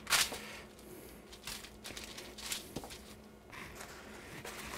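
Raw goat shanks being handled and set down on parchment paper: crinkling and rustling of the paper with soft squishes of meat. It comes as a series of short rustles, the loudest just after the start.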